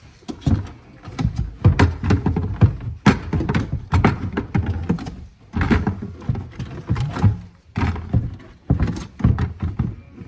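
Irregular knocking and clattering thuds, several a second, with short pauses.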